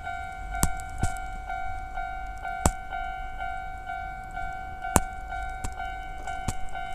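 Japanese level-crossing warning bell sounding its older standard electronic tone, a steady ringing note repeated about twice a second. Sharp clicks break in several times.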